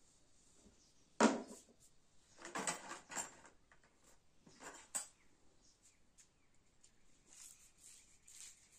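Scattered knocks and rustling of things being handled, with the sharpest knock about a second in and a busier stretch around three seconds.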